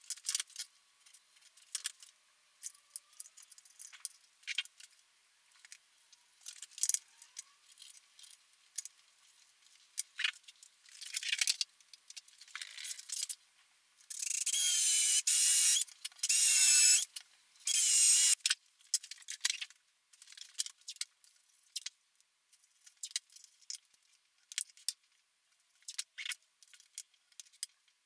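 Cordless drill boring into the wooden guitar body in three short runs about halfway through, its motor whine wavering as the bit cuts. Before and after, scattered light clicks and knocks of tools being handled on the bench.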